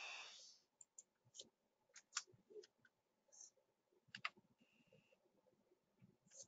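Faint, scattered clicks of a computer mouse and keyboard keys as values are entered into software fields.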